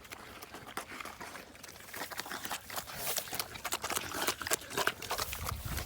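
Irregular quick clicks and taps, growing busier from about two seconds in.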